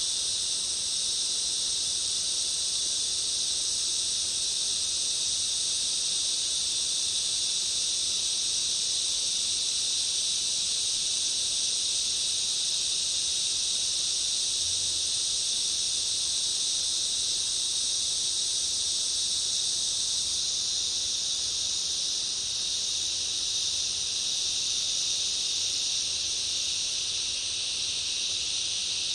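Summer rainforest ambience dominated by a dense, unbroken high-pitched insect chorus that holds steady throughout.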